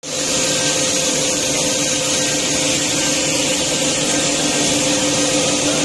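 Automatic PVC pipe threading machine running steadily: an even mechanical hum with a high hiss over it.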